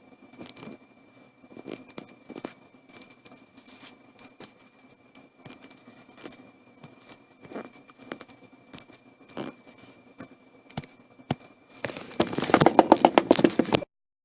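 Scattered irregular clicks and short rustles, like handling and crinkling noise, over a faint steady high whine. About twelve seconds in, a dense burst of rapid crackling rustle starts and then cuts off abruptly.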